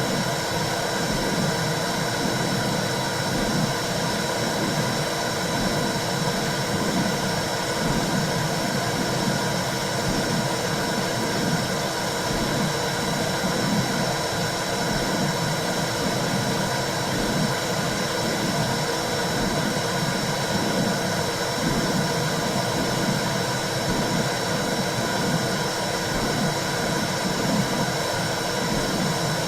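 Womb-sound recording of the kind played to soothe newborns: a steady whooshing hiss, with a low throb pulsing evenly through it like blood flow and a heartbeat heard from inside the womb.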